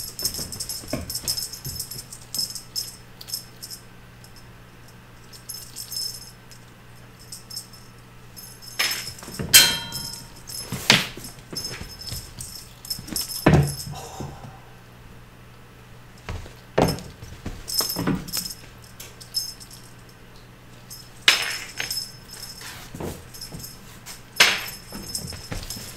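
Balinese kittens chasing and pouncing on a feather wand toy: irregular thuds and scrabbling as their paws land and skid on the floor and shaggy rug, with light jingling and rattling, over a steady low hum.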